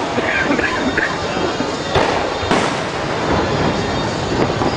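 Fireworks display: shells bursting overhead, with sharp bangs about two and two and a half seconds in over a continuous rumble of further explosions.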